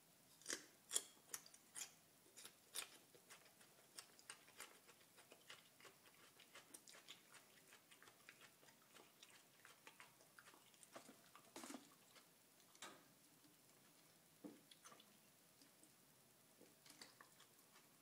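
Raw garlic cloves being bitten and chewed: a quick run of sharp crunches in the first few seconds, then quieter irregular chewing with a few louder crunches near the middle.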